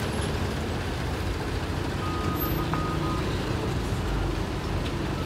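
Diesel coach engine running steady and low as the bus creeps forward in slow, jammed traffic.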